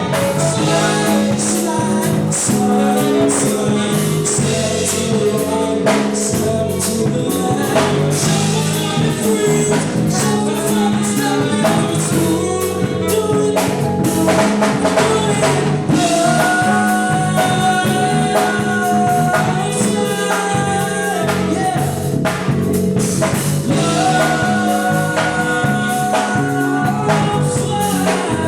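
Live band playing a rhythm-and-blues dance song with sung vocals over a steady drum-kit beat.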